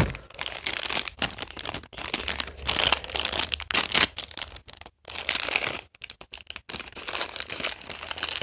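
A toy blind bag being torn open and handled: irregular crinkling and crackling of the bag, with a few short pauses about five to six and a half seconds in.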